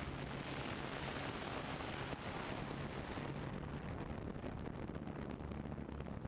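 Steady wind rush on the microphone of a drone in flight, with a low steady hum from its motors beneath it.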